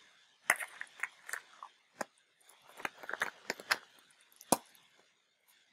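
Small plastic resurrection eggs being handled: a string of irregular sharp clicks and light rattles as one egg is put away and the next is pulled open. The loudest click comes about four and a half seconds in.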